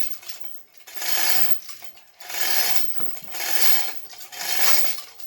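Ratchet wrench being cranked in repeated strokes, a rasping click-run about once a second.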